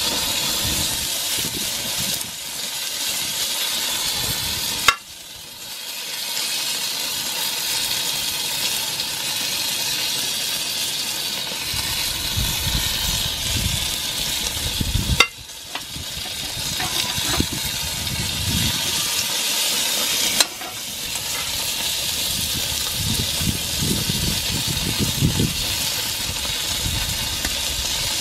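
Chicken leg quarters sizzling steadily on a hot cast-iron grill grate as they are basted with annatto butter. The sizzle is broken by a sharp click and a brief drop three times.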